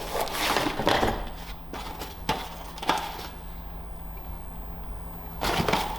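A light stand being handled during unpacking: several sharp knocks and clicks in the first three seconds, then quieter, over a steady low hum.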